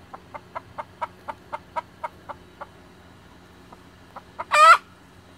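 Chicken alarm clucking: a run of short clucks about four a second that slows and breaks off, then one loud, short squawk near the end, the flock on alert.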